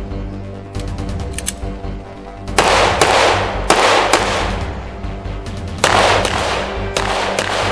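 Gunshots over background music: several loud shots, each trailing off in a long echo, in two clusters about three seconds in and about six seconds in.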